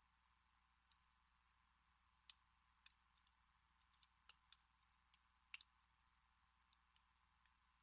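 Faint, irregular metallic clicks of a lock pick working the pin stack of an American Series 200 pin-tumbler padlock under tension, about a dozen light ticks spread unevenly over several seconds.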